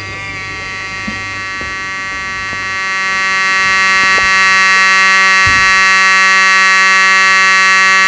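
Fire alarm horn sounding continuously as a steady, harsh buzz. A falling sweep tone dies away in the first second, and the buzz grows louder about three to four seconds in.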